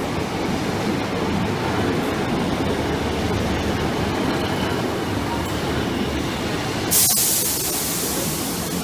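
British Rail Class 150 Sprinter diesel multiple unit running past along the platform with a steady low rumble. About seven seconds in there is a knock, followed by a sudden loud hiss.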